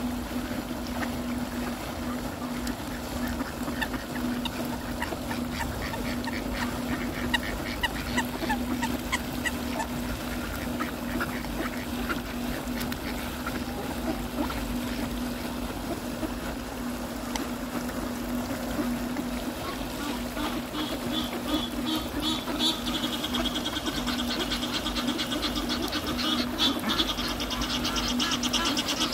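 A crowded flock of mallards quacking as it feeds, over a steady low hum. From about twenty seconds in, a rapid run of high, harsh honking calls builds and gets louder, fitting an Egyptian goose calling among the ducks.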